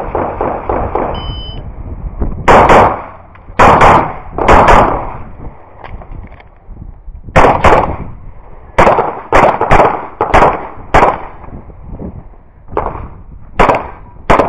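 A shot timer gives a short high beep about a second in. Semi-automatic pistol shots follow from about two seconds in: a rapid string of about fifteen, many fired as quick pairs, with short pauses as the shooter moves between targets.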